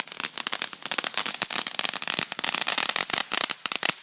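Firecrackers going off in a fast, dense run of sharp pops and cracks, many a second, like a string of firecrackers burning through.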